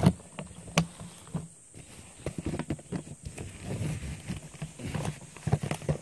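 Handling noise close to the microphone on a leaf-littered forest floor: two sharp clicks in the first second, then a run of soft, irregular knocks and rustles.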